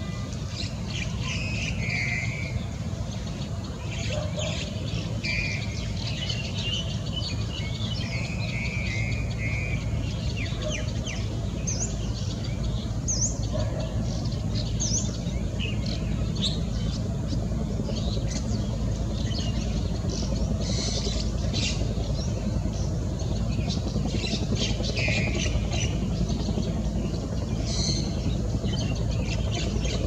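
Birds chirping and calling in short notes and brief trills, scattered through the whole stretch, over a steady low background rumble.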